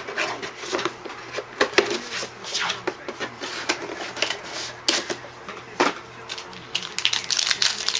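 Trading-card box packaging being handled and torn open: irregular crackling, crinkling and sharp clicks of wrapper and cardboard.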